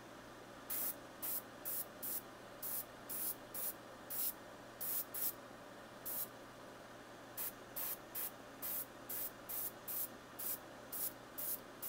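Airbrush spraying paint in short trigger bursts, about two a second with a brief pause midway, each a sharp hiss, as green is blended over the lure's lighter base coat. A steady low hum runs underneath.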